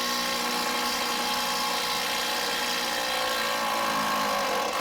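Milwaukee cordless 3/8-inch impact ratchet on an 18 mm socket, its motor running steadily at a constant pitch as it spins out a broken-loose lower control arm bolt, stopping right at the end.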